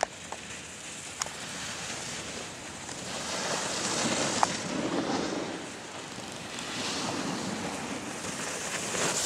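Rushing hiss of skis sliding and scraping over packed snow, swelling and fading, mixed with wind on the microphone, with a few sharp clicks.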